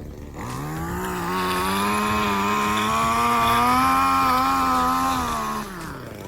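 Small engine throttled up: its pitch rises quickly, holds high and steady for about four seconds, then drops back as the throttle is released near the end.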